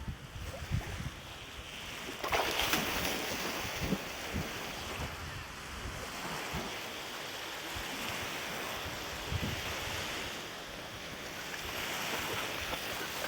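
Strong wind rushing, with low rumbling buffets on the microphone and a louder gust about two seconds in.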